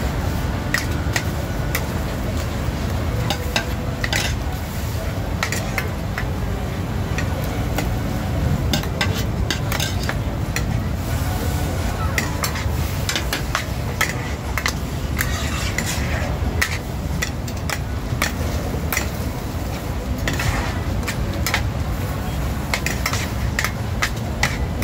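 Two metal ladles scraping and clanking irregularly against a large wok as kuey teow noodles and bean sprouts are stir-fried, with the food sizzling underneath.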